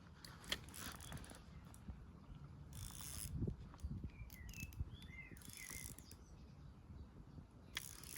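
Fishing reel being cranked, its mechanism clicking and whirring in short spells. A bird chirps a few times in the middle.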